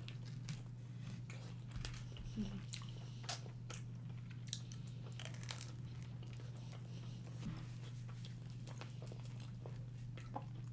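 Close-up eating sounds: bites and chewing of chicken wings and pizza, with scattered small crunches and wet mouth clicks over a faint steady low hum.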